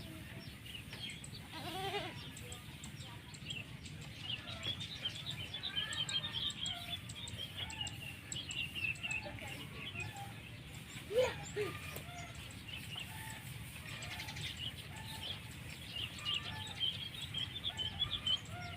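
A goat bleating briefly about two seconds in and again, louder, about eleven seconds in, over continual chirping of small birds.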